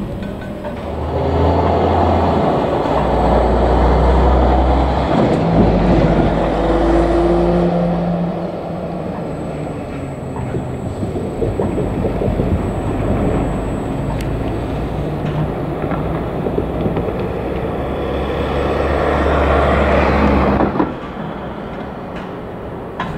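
Electric gantry crane running as it carries a steel coil: a loud, steady machine hum whose low tones shift in pitch in steps, over a rumble, cutting off suddenly near the end.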